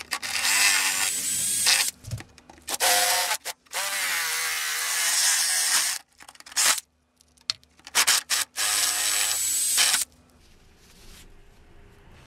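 Handheld rotary tool with an abrasive attachment grinding the surface of a stainless steel tube: a high motor whine over a rasping hiss, in several bursts of one to two seconds with short pauses between. It goes quiet near the end.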